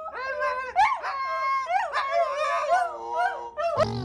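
A husky and a golden retriever howling together, in overlapping yowling calls that bend up and down in pitch. Near the end they cut off suddenly and give way to a lower, rising sound.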